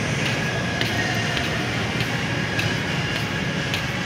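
Footsteps on a hard floor, regular taps a little under two a second, over a steady rumbling background noise.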